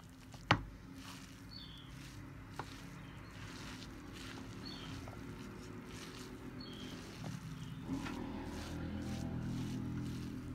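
Wooden spoon stirring minced-meat filling and grated mozzarella in a metal bowl, with one sharp knock about half a second in. A low motor-like hum grows louder through the second half.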